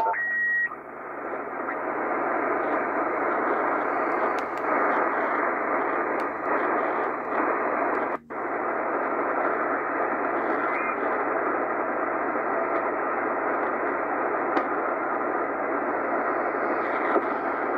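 Tecsun PL-880 shortwave receiver's speaker giving a steady hiss of band noise and static while tuned in single sideband, with a short whistle right at the start. The hiss cuts out for a moment about eight seconds in, as a new frequency is keyed in on the keypad.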